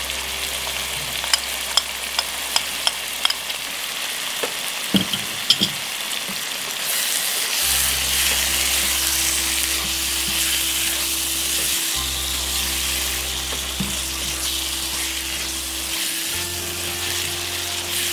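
Onion-tomato masala sizzling in a nonstick wok, with a spatula stirring and scraping through it. Sharp utensil taps come in the first few seconds, and the sizzle grows louder about seven seconds in, once the mix is stirred around.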